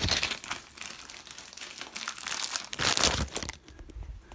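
Close, irregular rustling and crinkling handling noise in uneven bursts, loudest at the very start and again about two to three seconds in, as hands work a plastic refill tube onto the nipple of a new toilet fill valve inside the tank.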